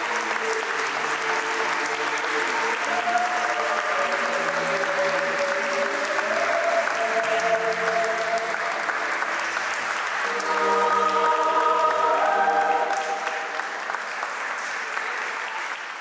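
Audience applauding steadily over recorded choral music with long held notes; the music swells about ten seconds in.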